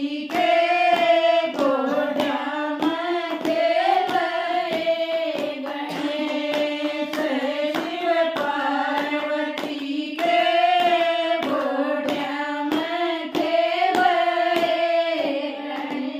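A group of women singing a Hindi devotional bhajan to Ganesh together, with hand claps keeping a steady beat of about two a second.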